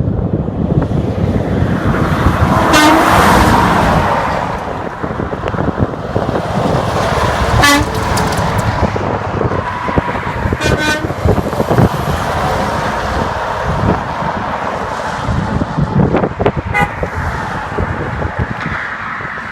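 Highway traffic rushing past close by, with a few short truck horn toots spread through it.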